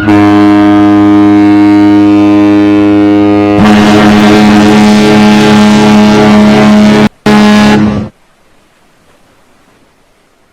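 Cruise ship horns sounding in turn. A deep horn blows steadily for about three and a half seconds, then a higher-pitched horn takes over for about three and a half seconds, followed by a short blast after a brief break.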